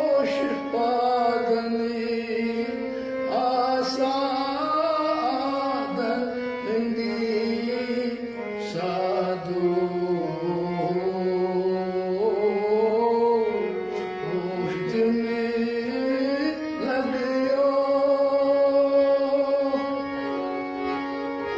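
Indian devotional music: a melody of long held notes moving in steps, with occasional drum strokes.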